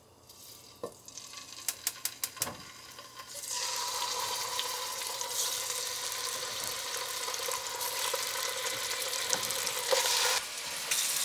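Raw chicken pieces frying in hot cooking oil in a pot, a steady sizzle that starts about three and a half seconds in as the meat goes into the oil. A few sharp clicks come before it.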